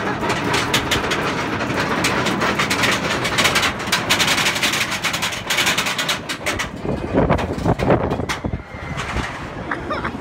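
Roller coaster train running along its track: dense rushing noise with a fast, irregular rattle and clatter, easing off near the end.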